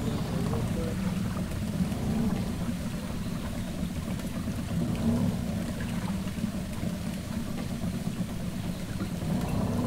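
A small boat's motor running steadily under way, with water rushing and splashing along the hull.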